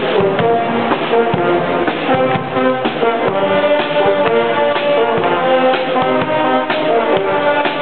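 Street brass band playing: trumpets, trombones and tubas sounding sustained chords and melody over a steady drum beat.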